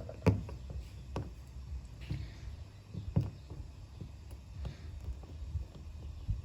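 Scattered light taps and rubbing from fingers pressing adhesive protective film down over the edges of a car's marker light, over a low steady rumble.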